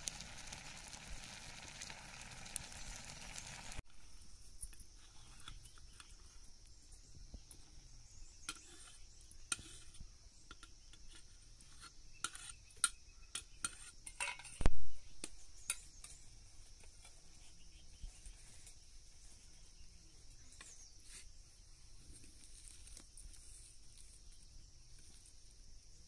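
Utensils clinking and scraping against pots and dishes during cooking, with scattered sharp clicks and one much louder knock about fifteen seconds in, over a steady high hiss.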